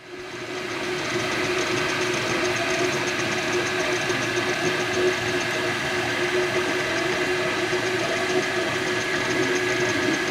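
MakerBot Replicator 2 3D printer running as it prints, its extruder head buzzing as it moves around, with a steady whine through the noise. It fades in over the first second and then holds even.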